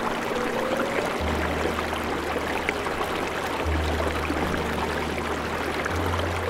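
Running water, a steady rushing like a stream, with low sustained music notes underneath that change pitch a few times.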